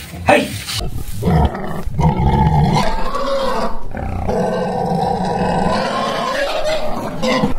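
Small spotted wild cats in a cage growling, one long sustained growl starting about a second in and lasting several seconds.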